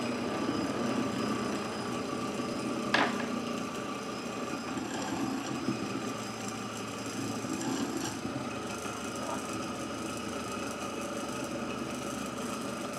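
Heavy disc of a gyroscope apparatus spinning fast on its axle, a steady whir, with one sharp click about three seconds in.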